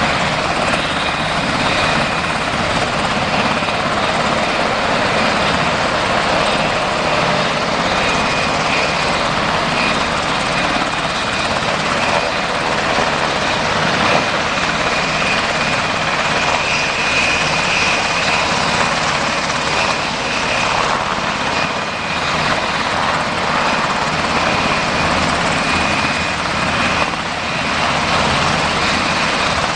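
U.S. Army UH-60 Black Hawk helicopters, their rotors and twin turboshaft engines running loud and steady as they come in to land, with a steady high turbine whine over the rotor noise.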